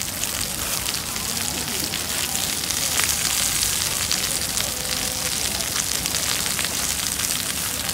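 Cabbage and bean sprouts sizzling on a hot flat iron griddle for yakisoba, a steady hiss with many small pops.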